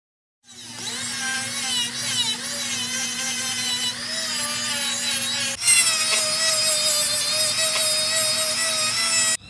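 Flexible-shaft rotary tool running with a steady whine as it sands and grinds the wooden frames of a model ship hull. It starts about half a second in, breaks off briefly about halfway, then carries on at a slightly different pitch.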